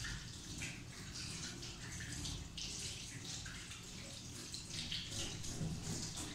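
Kitchen tap running into a metal sink while hands are washed and rinsed under the stream, the water splashing unevenly.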